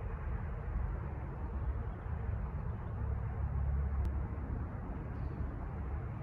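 Steady low outdoor background rumble, swelling slightly about three seconds in, with a single sharp click about four seconds in.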